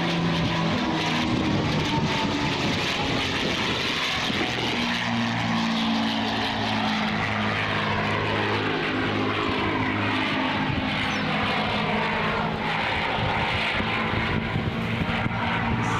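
Two P-51 Mustangs' V-12 piston engines droning loudly and steadily in close formation, the pitch sliding slowly down and back up as the pair climbs and rolls overhead.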